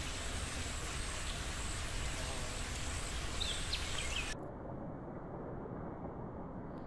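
Steady background hiss from the habitat with a faint, high, steady tone and a few brief chirps. About four seconds in, it turns duller and a little quieter.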